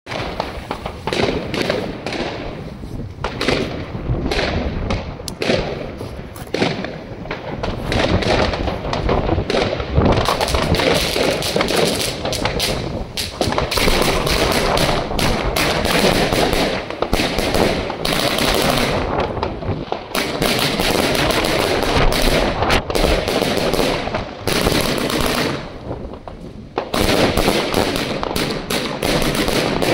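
Funke Raptor Princess 100-shot 25 mm compound firework cake firing in rapid volleys: tubes launching shot after shot and shells bursting overhead in a dense, continuous barrage, with a short lull near the end before it picks up again.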